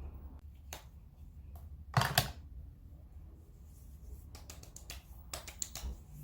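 Scattered sharp clicks and taps, the loudest a close pair about two seconds in and a quicker run of them near the end, over a low steady hum.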